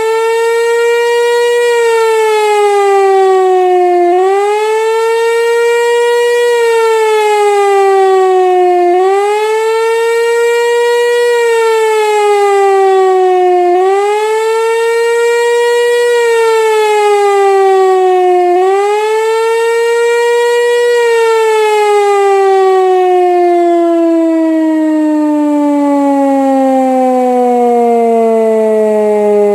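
Pneumatic high-performance civil defence siren sounding the rising-and-falling wail of the German "Warnung" signal. The pitch swings up quickly and sinks slowly, about once every five seconds. About two-thirds of the way through, the last swing turns into one long steady slide down as the siren winds down at the end of the signal.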